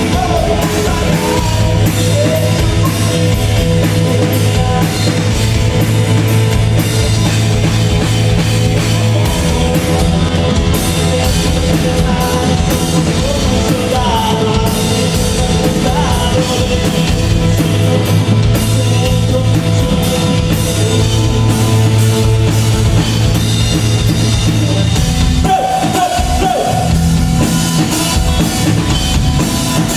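Loud rock music with a drum kit and a heavy bass line.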